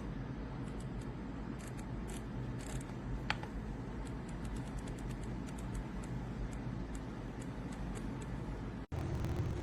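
RK Royal Kludge S98 mechanical keyboard's keys clicking sporadically as it is typed on, over a steady low hum, with one sharper click about three seconds in.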